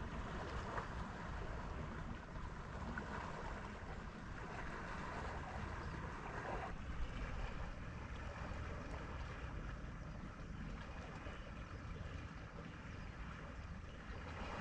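Sea water washing and lapping at a rocky shore, a steady wash of noise, with wind rumbling on the microphone.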